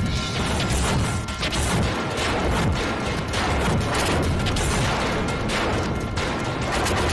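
Dramatic TV-serial background music overlaid with a rapid, continuous string of crash and swish sound-effect hits.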